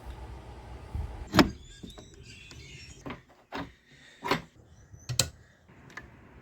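A handful of sharp knocks and clicks, about five over four seconds with the first the loudest, and faint high squeaks after the first one.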